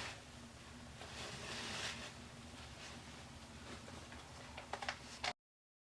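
A faint, brief hiss of about a second from a Got2B aerosol hair spray sprayed onto the lace, followed by a few light clicks near the end before the sound cuts off.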